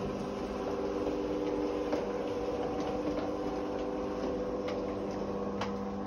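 Garolla electric roller garage door's motor running with a steady hum as the door winds up to open.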